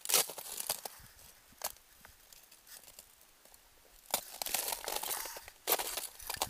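Footsteps crunching on frozen snow and rime ice in irregular bursts, with a quieter stretch of about three seconds in the middle.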